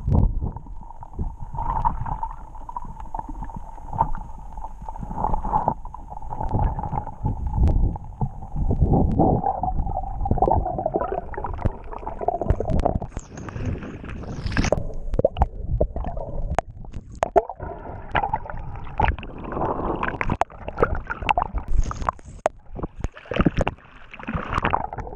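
Underwater action-camera sound of a spearfisher swimming: muffled rushing and gurgling water with scattered clicks and knocks, and a steady high hum through about the first half. Near the end it turns to splashing as the camera breaks the surface.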